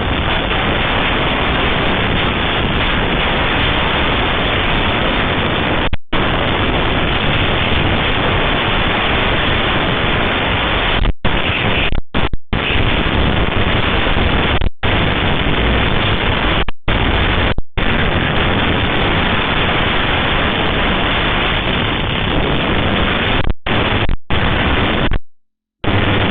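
Loud, steady hiss of noise with no distinct events, broken by several brief silent dropouts.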